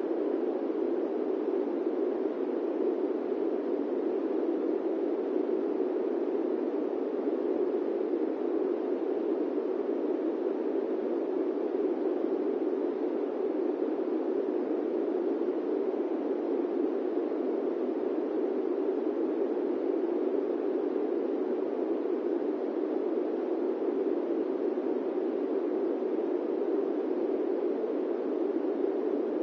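Airplane cabin white noise: a steady, even hush, strongest in the low-mids, with no tones, bumps or changes.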